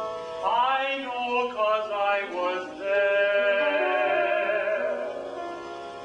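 A man singing in a trained classical style with piano accompaniment, his voice gliding up and then holding one long note with vibrato about halfway through.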